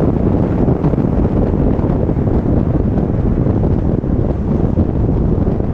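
Wind buffeting the microphone of a camera mounted on the roof of a car moving at highway speed: a loud, steady, low rush of wind noise mixed with road noise.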